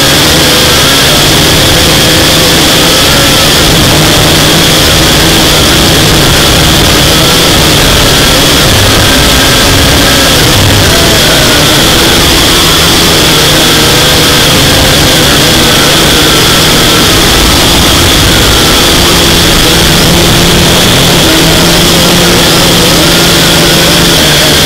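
A drone's electric motors and propellers running steadily and loud, close to the drone's own camera microphone: a high whine over a rushing noise, with lower tones that waver slightly in pitch as the thrust changes.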